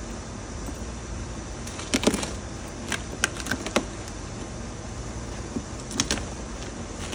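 Large cardboard shipping box being handled and its flaps pulled open: a few short rustles and knocks about two, three and six seconds in, over a steady low background hum.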